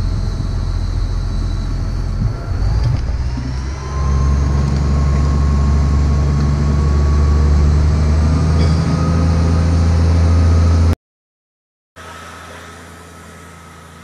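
Boat engine running close by. About four seconds in it revs up and holds higher, with a slowly rising whine on top. The sound breaks off for a second near the end, and a fainter engine hum follows.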